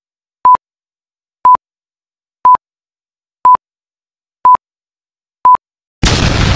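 Six short electronic beeps at one steady pitch, evenly spaced one a second like a countdown, then a sudden loud burst of noise near the end.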